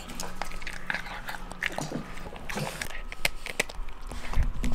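A dog eating and chewing: a run of irregular small crunches, clicks and bites as it works at its food and a chew stick.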